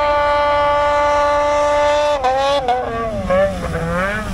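Snowmobile engine running hard at a steady high pitch as the sled skims across open water on a flooded field. About two seconds in, the note drops and then wavers up and down.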